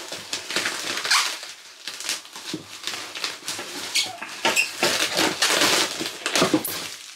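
Polystyrene foam packing blocks squeaking and scraping against each other and the cardboard box as hands work them loose, in a run of irregular rubs and squeaks.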